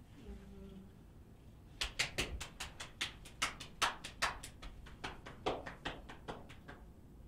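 A quick, uneven run of about twenty sharp taps, three to four a second, starting about two seconds in and stopping near the end. A brief low hum comes just before them.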